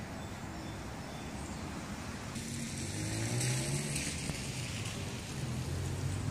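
Steady outdoor traffic hum, then a car engine close by, its pitch rising a little as it accelerates, with a short burst of tyre or road hiss.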